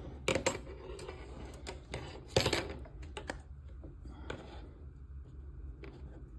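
Model kit parts being handled and screwed onto a frame: scattered light clicks and clinks of small pieces and a screwdriver, the loudest knock about two and a half seconds in.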